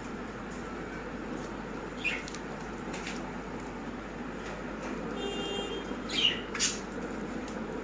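Baazigar pigeons over a steady background hiss: a short high call about two seconds in, a brief whistle-like tone past the five-second mark, then a quick pair of louder high calls near the end.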